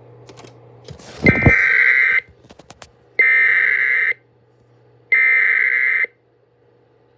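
Wireless Emergency Alert attention tone from a phone's speaker: three loud blasts of a harsh multi-pitched tone, each about a second long with about a second between them, signalling an incoming emergency alert. A low thump comes just as the first blast starts.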